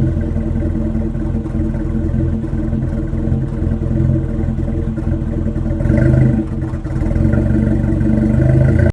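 A 1987 Toyota truck's carbureted engine running on its freshly rebuilt carburetor. It is blipped up briefly about six seconds in, then held at higher revs.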